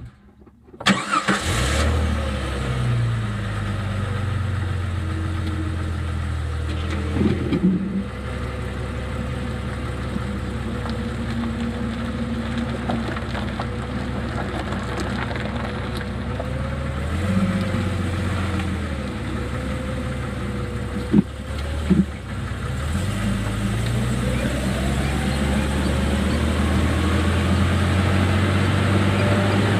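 Jeep engine starting about a second in, then driving at low speed as heard from inside the cabin, with the engine pitch climbing and dropping back several times as it works through gears. Two sharp knocks come close together about two-thirds of the way through.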